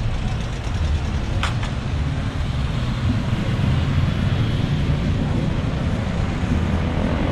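City street traffic: vehicle engines and tyres making a steady low rumble, with a brief sharp high sound about one and a half seconds in.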